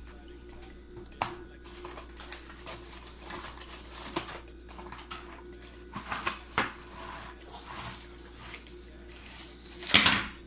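Handling of a muscle roller stick and its packaging: scattered rustles, taps and clicks, with one loud rustle near the end.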